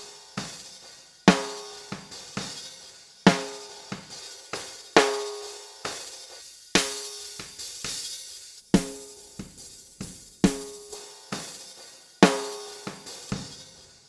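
Looped snare drum recording played through a linear-phase EQ plugin: a sharp snare hit about every 1.8 seconds with softer strokes in between. The snare's tone shifts as different EQ presets are switched in.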